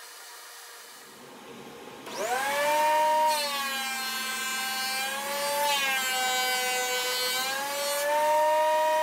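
DeWalt benchtop thickness planer's motor switched on, spinning up with a rising whine about two seconds in and then running at a steady high pitch that dips briefly a couple of times.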